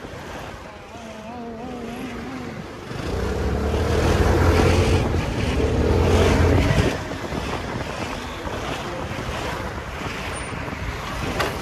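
Motorcycle engine running under way through traffic, with heavy wind noise on the microphone. The engine grows much louder for about four seconds in the middle, then falls back beneath the wind rush.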